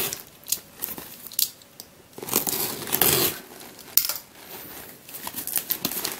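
Box cutter slitting the plastic film wrapped over a cardboard parcel, with bursts of crinkling and tearing plastic and a sharp click about four seconds in.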